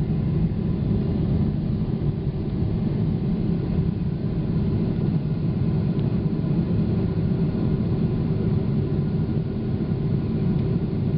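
Boeing 777 jet engines and airflow heard from inside the cabin during takeoff: a steady low rumble with a faint steady whine above it.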